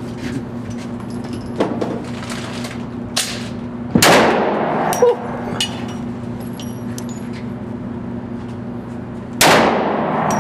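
Gunshots echoing in an indoor shooting range: two loud shots about five and a half seconds apart, each with a long ringing tail, amid fainter knocks and clicks over a steady low hum.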